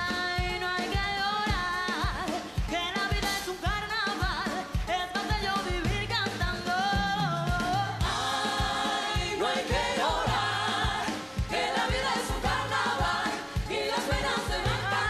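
A live band plays a dance number with a steady beat while a woman sings lead, joined by backing voices.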